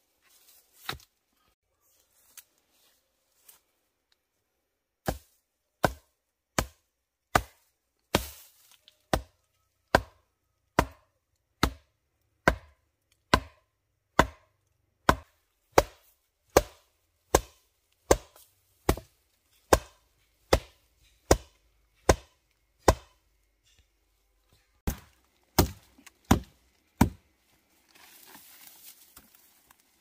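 Wooden stakes being pounded into the ground: a long run of sharp, even blows, about one every 0.8 seconds, with one short pause. Near the end comes a soft rustle of brush.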